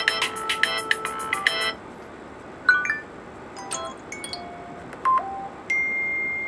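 An iPhone X's built-in loudspeaker plays ringtone and alert-tone previews, with the speaker being checked for distortion. A fast-repeating electronic ringtone snippet stops just before two seconds in. Then come several short, separate text-tone chimes as tones are tapped one after another, and a steady high tone near the end.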